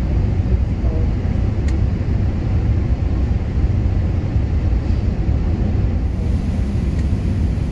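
Airbus A380 cabin noise on short final: a steady low rumble of engines and rushing air heard from a window seat over the wing. About six seconds in, the hiss shifts slightly where the sound cuts to another moment.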